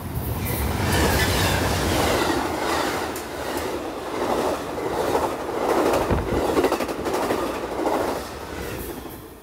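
Amtrak passenger train with double-deck Superliner cars passing close by without stopping. A low rumble at first, then the clatter of the cars' wheels pulsing about once a second as car after car goes by, fading near the end.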